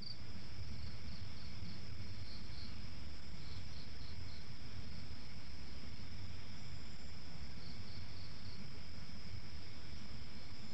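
Night insect chorus of crickets: a steady high trill with groups of short chirps recurring every few seconds, over a low rumble.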